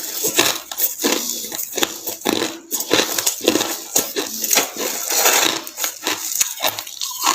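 Mouth crunching and chewing white snow ice: a dense, irregular run of crackling crunches.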